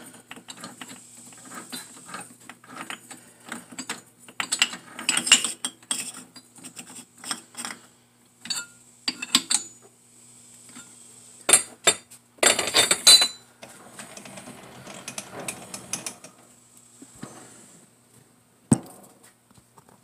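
Irregular metallic clicks, knocks and scrapes as a receiver dryer canister is set into a lathe's three-jaw chuck and the chuck jaws are closed on it. A cluster of louder clanks comes a little after halfway, and one sharp knock near the end.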